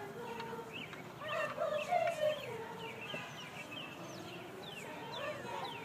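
Many children's voices outdoors, overlapping chatter and high calls with no single clear speaker.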